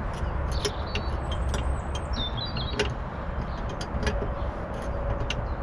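Spanner tightening a brake pipe union nut into a new brake fluid reservoir: scattered small metallic clicks and a few brief high squeaks about a second or two in, over a steady low rumble.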